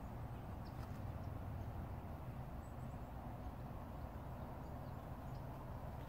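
Outdoor ambience: a steady low rumble with a few faint, short, high bird chirps.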